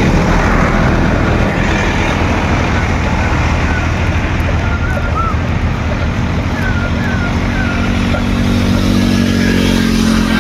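Steady noise of road traffic passing close by. An engine's hum grows louder and rises in pitch near the end as a vehicle approaches.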